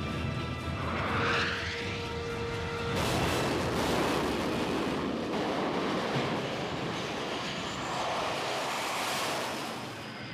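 Carrier-based jet fighter's engines at full power during a catapult launch: a loud, even rush of jet noise from about three seconds in that swells again near the end, with music fading under it at the start.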